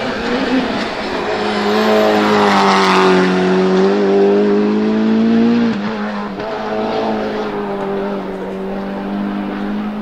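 Tuned Mitsubishi Lancer Evo's turbocharged 4G63 four-cylinder at full throttle on a hillclimb run, its engine note rising as the car nears. About six seconds in the pitch and loudness drop as it goes by, and the engine keeps pulling as it heads away.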